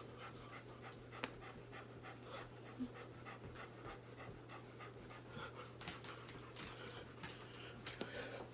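Faint, quick panting breaths repeating evenly, over a steady low hum, with a single sharp click about a second in.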